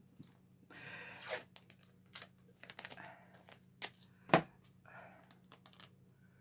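Blue painter's tape pulled off its roll and torn: a short rip about a second in, followed by small clicks and taps of handling, with one sharper knock a little past the middle.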